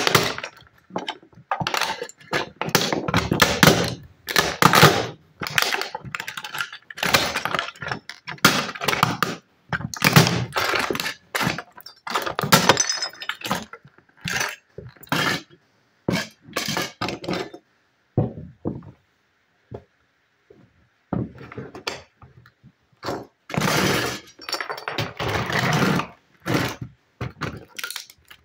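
Football cleats stomping on and crushing a toy school bus on a wooden floor: irregular bouts of crunching and cracking plastic, with thuds of the studs on the boards. The bouts stop for a few seconds about two-thirds of the way through, then resume.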